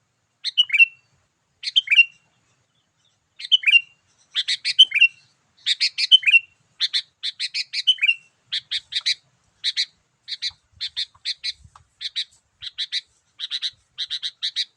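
Sooty-headed bulbul (kutilang) singing its lively 'gacor' lure call. It starts with bright chirpy phrases that each end in a falling slur, then settles after about five seconds into a fast, even run of short notes, two to three a second.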